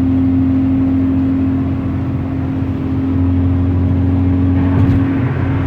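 Steady road and engine drone of a car driving in traffic, heard from inside the cabin, with a constant low hum.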